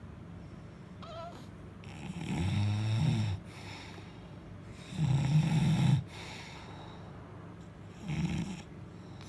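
A sleeping man snoring: three snores about three seconds apart, the last one the shortest.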